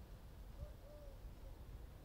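A dove cooing faintly: one soft three-note phrase, a short coo, a longer arched coo, then a short one, about half a second in. A low steady rumble lies underneath.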